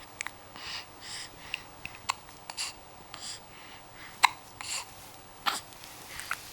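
Baby hiccuping: a series of short, sharp hiccups, one every second or so, the loudest a little past the middle.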